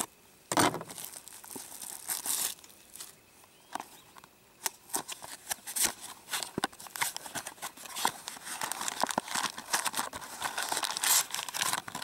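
Cardboard condom box being torn and pulled open by gloved hands: a run of rustles, tears and small clicks, sparse at first and busier in the second half.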